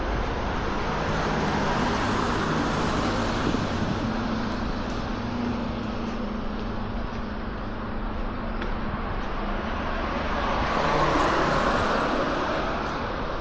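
Street traffic: cars driving past in a steady wash of road noise with a low engine hum, one passing car louder near the end.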